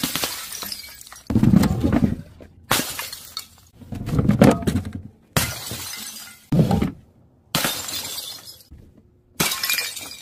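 A quick series of about seven separate crashes as bottles and containers filled with paint or coloured powder hit stone paving tiles from a height and burst. Each crash is a sudden smash with shattering and breaking, and comes roughly every second and a half.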